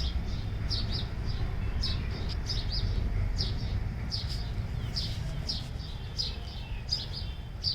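Bird chirping: short high chirps, often in quick pairs, repeating every half second or so, over a steady low rumble.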